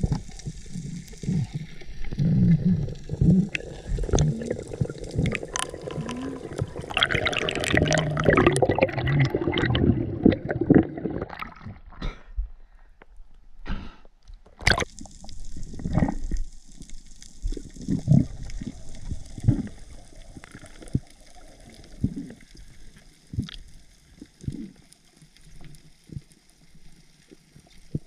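Water gurgling and sloshing around a spearfisher's underwater camera. It is loud and bubbly for the first ten seconds or so, and quieter afterwards, with a sharp knock about halfway through and scattered short splashes every second or two.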